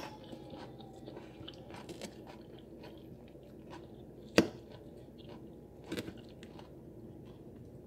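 Close-up crunchy chewing of a fresh salad of lettuce and red cabbage, with faint crackles throughout and a fork clicking on the plate. A sharper knock comes about four seconds in, and a smaller one at about six.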